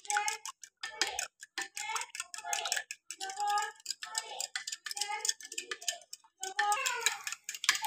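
A spoon clinking against a glass bowl as eggs and milk are beaten together, about two clinks a second, each with a brief ring.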